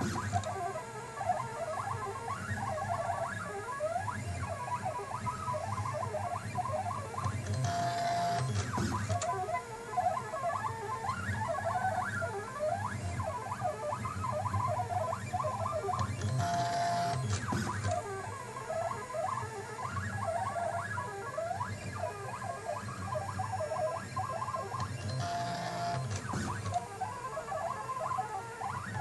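Stepper motors of a hobby CNC machine burning a picture, making quick chirping whines that rise and fall as the head moves back and forth, over a steady low hum. About every eight and a half seconds there is a brief steady tone with a short rush of noise.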